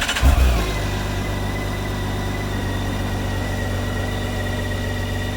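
BMW K1600 GTL-E inline-six engine just started, briefly surging in the first second and then settling into a steady idle, with a thin steady whine above it.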